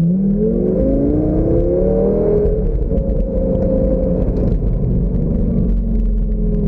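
Open-top sports car's engine accelerating, its pitch rising for about two and a half seconds and then holding steady, heard from inside the open cabin.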